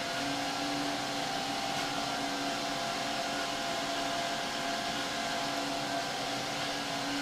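ProForm Crosswalk treadmill running: its brushed DC drive motor and belt hum steadily with a few held tones, mixed with the whoosh of two added computer turbo cooling fans. The motor, fitted with new brushes and a new MC2100 control board, runs evenly without bogging down.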